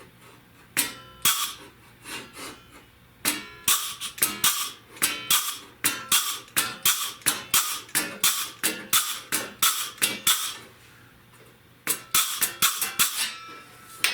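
Hand crimping (flanging) tool clacking shut again and again as it crimps a step into the edge of a sheet-metal patch panel, about three sharp metallic clacks a second, with a brief pause near the end before a last quick run.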